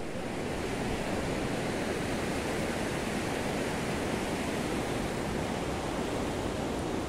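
Steady rushing of the Saraswati, a mountain river flowing past.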